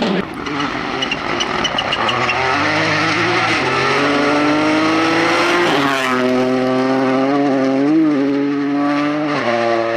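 Toyota rally car's engine pulling hard on a gravel stage, its pitch climbing and then stepping back at each gear change.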